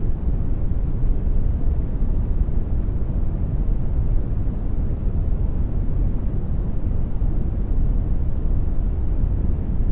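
Generated brown noise: a steady, deep rumbling hiss, strongest in the bass and thinning out toward the treble, unchanging throughout.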